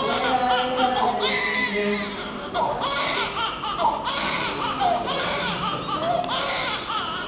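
Newborn baby crying: a run of short wailing cries, each under a second, one after another.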